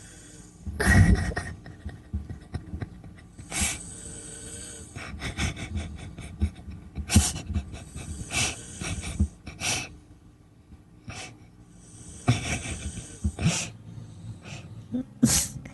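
A person snoring in sleep: irregular rasping snorts and breathy inhalations every one to three seconds.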